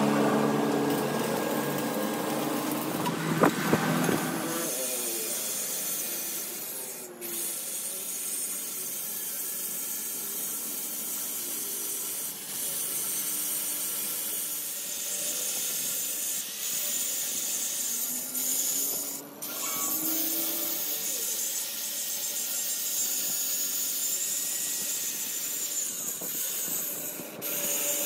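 Electric angle grinder grinding the steel of a truck front axle beam: a steady high grinding hiss with a faint motor whine, lifted off briefly about three times. In the first few seconds a deeper machine hum with a single loud knock comes before the grinding starts.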